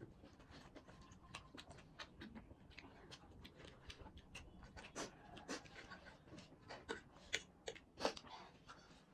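Quiet close-up eating sounds of spicy ramen noodles being eaten: chewing, slurping and short breaths, with many small scattered clicks and smacks.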